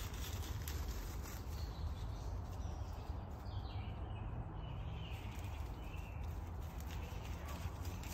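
Woodland ambience: a steady low rumble with light rustling in dry leaf litter, and faint bird chirps about three to five seconds in.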